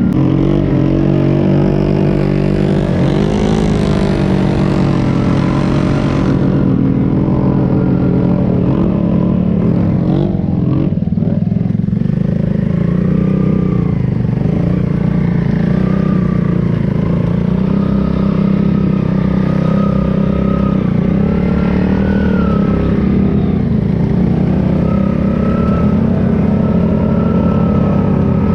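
ATV engine running continuously while riding, its pitch rising and falling with the throttle.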